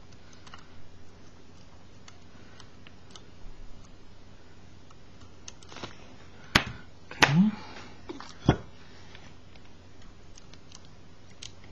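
Small scattered clicks and taps of metal tweezers and fingers handling the flexible circuit and plastic parts of a disassembled Canon T90 camera body, with three sharper clicks in the second half.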